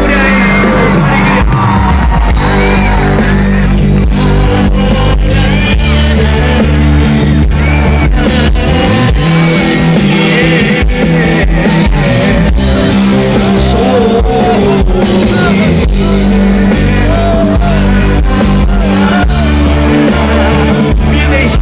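A live pop-rock band playing loud through the PA, with drums, electric guitar, keyboard and a singing voice, recorded from the audience.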